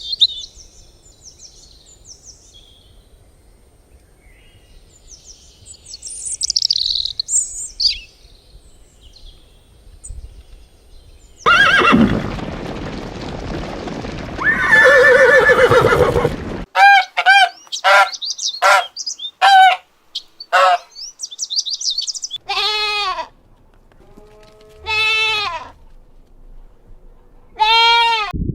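Birds chirping for about the first ten seconds, then a loud noisy passage, then a series of short, loud, pitched farm-animal calls repeated several times to the end.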